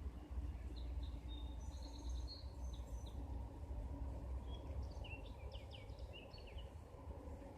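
Songbirds chirping in short trills and twitters for several seconds, over a steady low rumble.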